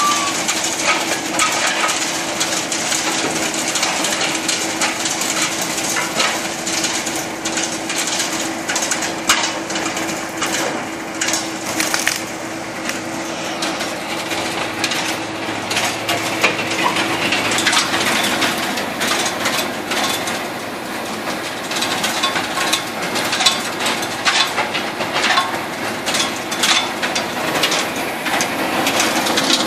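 Heizohack 6-300 wood chipper running under load, crunching and splintering brushwood and branches as they are fed in. A steady machine hum runs under a constant stream of cracks and snaps, the hum weakening after about twenty seconds.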